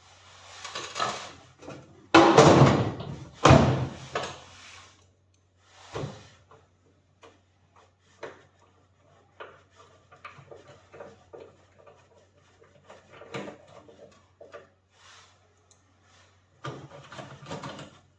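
Hands working on a microwave oven under repair: scraping in the first two seconds, then two loud clunks about two and three and a half seconds in, followed by scattered clicks and taps and a short rubbing near the end.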